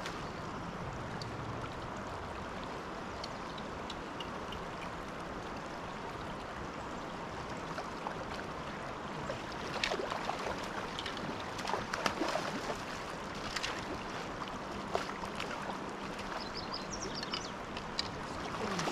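Shallow river current flowing steadily around a wading angler. From about ten seconds in there are scattered short splashes while a hooked fish is played close and netted.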